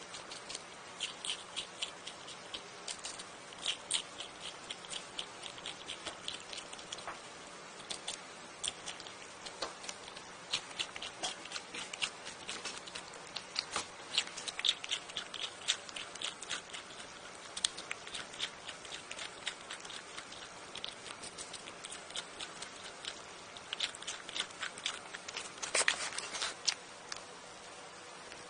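A ground squirrel nibbling a slice of cucumber: quick runs of small crisp crunches and clicks, coming in bursts with short pauses.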